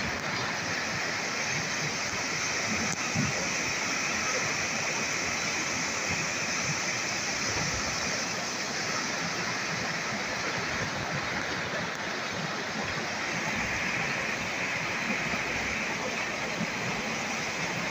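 Swollen, fast-flowing river rushing over rocks as white water, a steady, unbroken rush of water.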